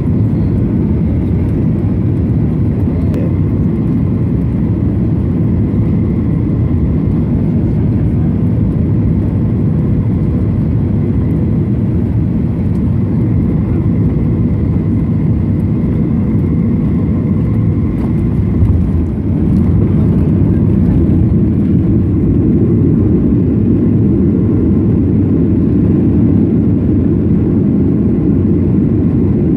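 Boeing 737 cabin noise on final approach, a steady engine drone and air rush with a faint whine. About two-thirds through, the touchdown comes as a brief jolt. After it the rush is louder as the plane rolls out on the runway with its spoilers up.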